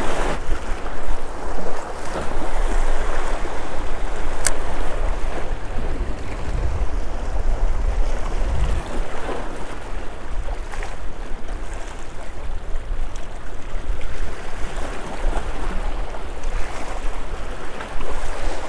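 Small waves washing and splashing against jetty rocks, with wind rumbling on the microphone and a single sharp click about four and a half seconds in.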